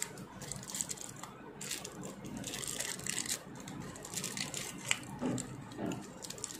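Foil crinkling and rustling in quick irregular crackles as it is wrapped and pressed by hand around a pen's barrel.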